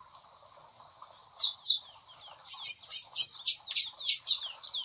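Chestnut-bellied seed finches (curiós) calling: two sharp downward-sweeping chirps, then from about halfway a quick run of high chirps, about four or five a second. A steady high insect buzz sits under them.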